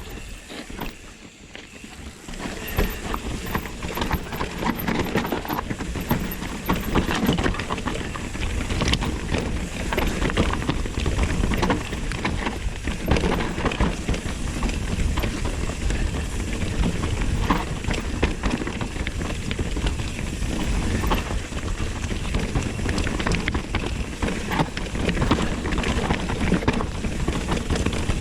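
Mountain bike descending a rough trail at speed: tyres on dirt and rock with constant irregular knocks and rattles from the bike, starting up after about two seconds.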